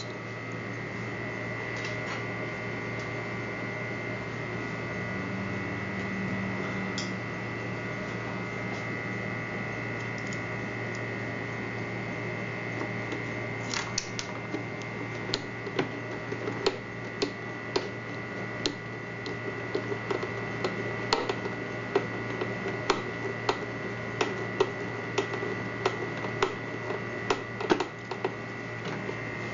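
Steady electrical hum throughout. From about halfway on it is joined by a run of small, sharp metallic clicks, irregular and up to a few a second, as the four screws are driven into the steam iron's plastic housing with a screwdriver.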